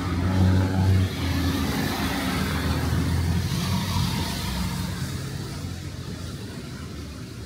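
A car driving past on a wet street: its engine hum is loudest about a second in, then fades away, over a steady hiss of tyres on wet road and rain.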